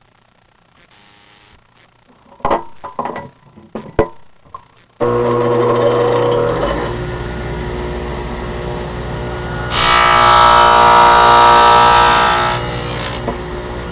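A few knocks as the board and jig are handled. Then, about five seconds in, a table saw fitted with a 3/4-inch dado blade switches on and runs with a steady drone. About ten seconds in it rises to a louder, higher whine for a couple of seconds as the dado blade cuts a finger slot through the board, then settles back to running.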